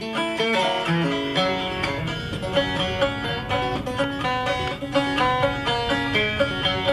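Background bluegrass-style music: fast picked notes on banjo and acoustic guitar.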